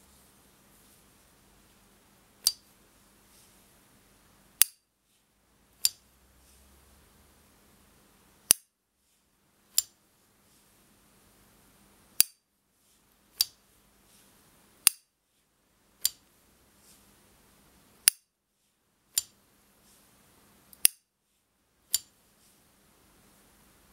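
Small 1970 S.T. Dupont Ligne 1 lighter's lid flicked open and snapped shut over and over. About a dozen sharp metallic clicks, one every one to two seconds, each with the high ringing ping these lighters are known for.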